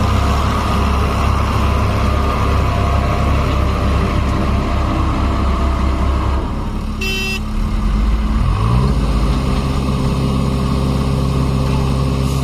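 Heavy diesel engine running loudly, its note dropping about six seconds in; a short vehicle horn toot about seven seconds in; then an engine revs up and settles into a steady run.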